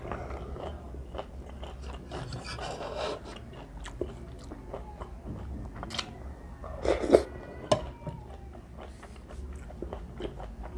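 Close-miked chewing and mouth sounds of a person eating cheese ramen with corn from a spoon, with scattered sharp clicks. The loudest burst comes about seven seconds in, as a spoonful goes into the mouth.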